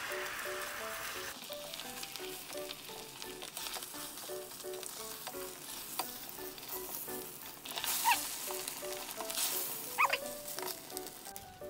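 Beaten egg sizzling in a hot oiled rectangular tamagoyaki pan, loudest in the first second and a half as the egg is poured in. Later a spatula scrapes the pan in short bursts while the omelette is rolled, over light background music.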